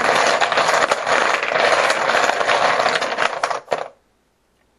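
Poker chips clattering together in a bucket as it is shaken to mix them for a random draw: a dense run of small clicks that stops suddenly about four seconds in.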